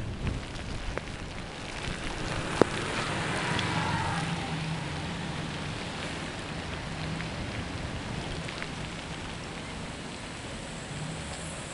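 Steady rain falling and hissing, heard from a bicycle riding on a wet road, with drops striking the camera. A single sharp click comes about two and a half seconds in.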